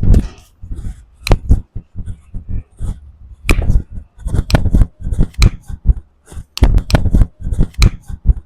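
Repeated sharp slaps and knocks of hands striking a patient's body during a chiropractic adjustment, coming in quick clusters of several strikes with short pauses between them.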